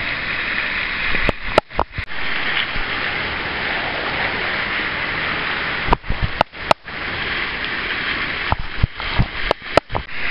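Steady hiss of steam venting from a hydrothermal fumarole among rocks. It is broken by clusters of sharp clicks with brief dropouts about a second and a half in, around six seconds, and again near the end.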